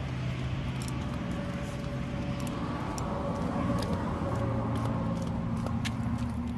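Car on the move: steady engine and road noise with a low hum, and scattered light clicks.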